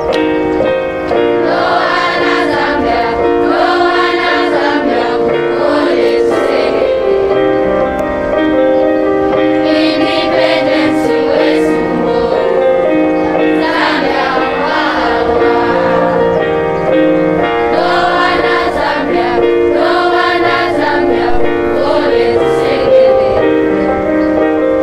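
A school choir of boys and girls singing together in harmony, with several voices holding notes at once.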